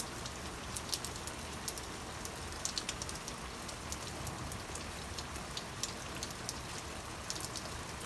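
Steady hiss with many light ticks scattered irregularly through it.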